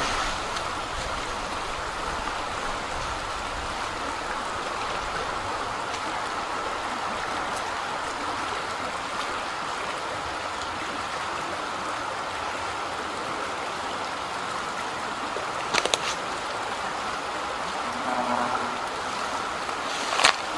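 Shallow creek running over rocks, a steady even rush of water. A couple of short sharp clicks come late on.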